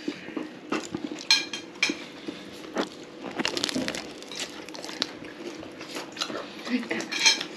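Chopsticks and spoons clinking and tapping against porcelain plates, bowls and glasses at a dinner table, in short scattered clicks with a few brief ringing chinks.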